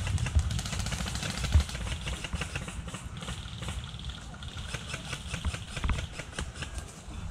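Airsoft electric guns firing rapid full-auto bursts, a fast, even rattle that is strongest about three to six seconds in. Under it runs a steady low rumble of wind and movement on the microphone.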